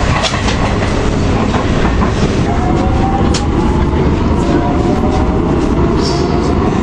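Cairo Metro car heard from inside while the train runs: a steady rumble of wheels on rails with occasional clicks, and a whine that glides slowly up in pitch from about two and a half seconds in.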